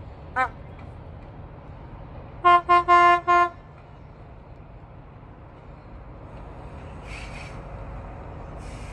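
Diesel train's horn giving four short toots at one pitch, about two and a half seconds in, after a brief rising note. A low rumble grows near the end as the train approaches.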